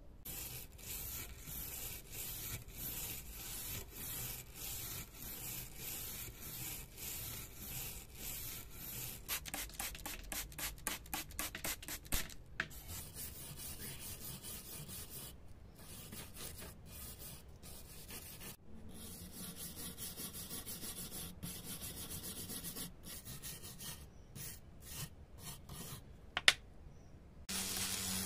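Hand sanding: an abrasive block rubbed back and forth in quick strokes over the rusty metal body of an old bubble level. Shortly before the end a rotary tool with a small wire brush starts running steadily.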